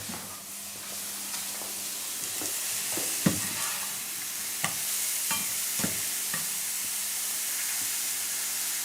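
Mushrooms sizzling in a hot frying pan with no oil, giving off their water, with a few short knocks and scrapes of a utensil stirring them.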